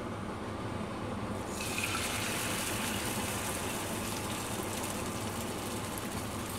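Beaten egg poured from a bowl into a frying pan of hot olive oil, sizzling as it hits the pan. The sizzle starts about a second and a half in and carries on steadily.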